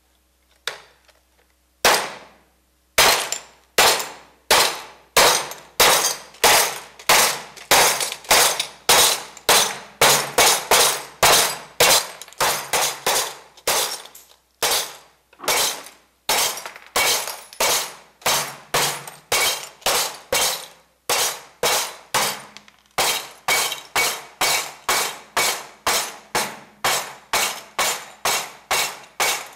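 Glass being smashed by repeated hammer blows on a workbench: a steady run of sharp cracks, about two a second, each with a brief ringing tail. It starts about two seconds in and pauses briefly twice.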